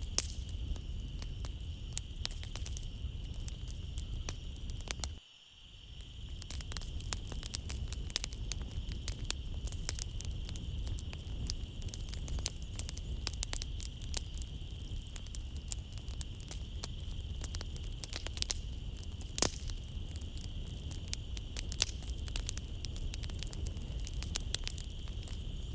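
Wood fire crackling in a fireplace, with frequent sharp pops over a low rumble, under a steady high chirring of crickets. About five seconds in, the sound briefly drops away almost to nothing and then fades back in.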